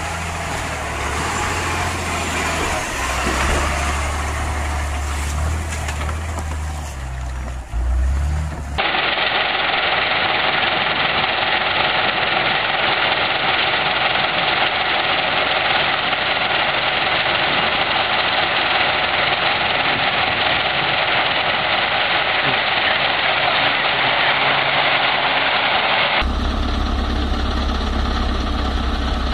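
Heavy KAMAZ diesel truck engines running off-road. First comes a deep engine rumble; about nine seconds in the sound switches abruptly to a loud, even noise without the low rumble; near the end it switches to a diesel idling with a steady deep pulse.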